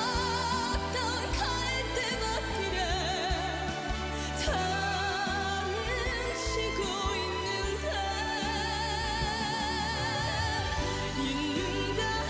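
Slow Korean trot ballad: a singer's long notes with wide vibrato over band accompaniment with a steady pulsing bass.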